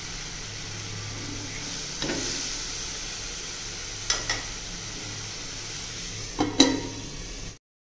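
Onion-tomato masala sizzling steadily in oil in a steel kadai, with a spatula clicking against the pan a few times. About six and a half seconds in comes the loudest sound, a ringing clank as a metal lid is set on the pan.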